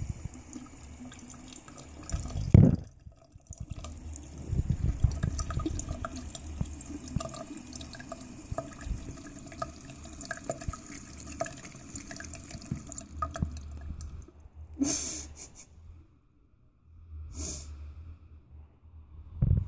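Thin stream of tap water running from a sink faucet, splashing and dripping as a cat drinks from it. A thump about two and a half seconds in; the running water drops out briefly after it and again for a few seconds near the end, broken by two short bursts of noise.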